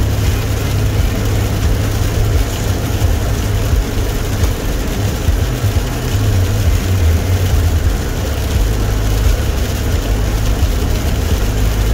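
Car cabin noise while driving on an icy road: a steady low rumble of engine and tyres with an even hiss over it.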